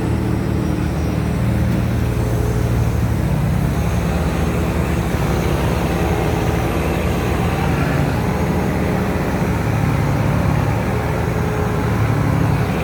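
A boat's engine running steadily and hard, a constant low hum, as it tows a three-deck boat stuck in the mud.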